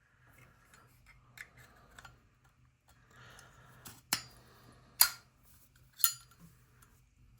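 Sharp metallic clicks from Zippo lighters being handled, each with a short high ring. Small clicks come early, then loud ones about once a second from about four seconds in.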